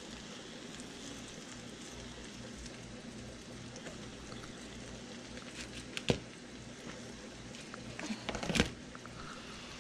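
Floured turkey pieces frying in a pan of hot oil: a steady, quiet sizzle. Two sharp clicks stand out, one about six seconds in and a louder one near the end.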